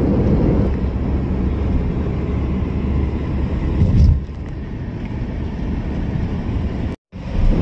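Road and engine rumble of a moving car heard from inside the cabin, a steady low noise. About four seconds in there is a low thump, after which the rumble is a little quieter, and the sound cuts out briefly near the end.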